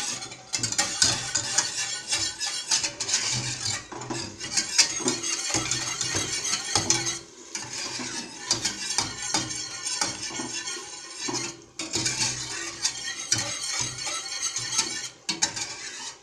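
Metal wire whisk beating a thick béchamel sauce in a stainless steel saucepan: fast, continuous scraping and clinking against the pan, with short pauses about 7, 12 and 15 seconds in.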